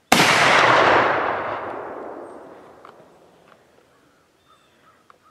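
A sudden loud boom that hits at once, holds for about a second, then fades away over the next three seconds, the high end dying out first.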